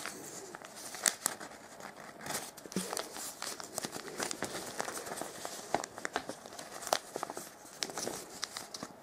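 Origami paper rustling and crinkling as hands tuck a folded module's flap inside another and pull it tight, with many small, irregular crackles.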